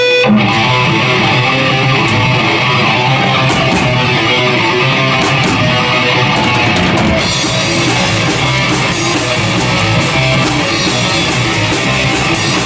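Rock band playing an instrumental intro: electric guitar and drum kit, growing fuller with cymbals about seven seconds in.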